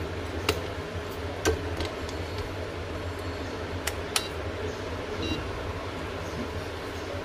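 Sharp handling clicks and taps on a workbench, then a digital multimeter's rotary dial turned with a couple of clicks, and a brief high beep from the meter a second later, over a steady background hum.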